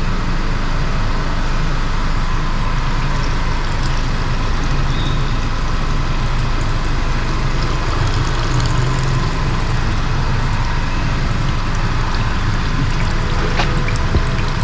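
Old engine oil pouring from a car's sump drain hole into a catch pan during an oil change, over a steady low machine hum.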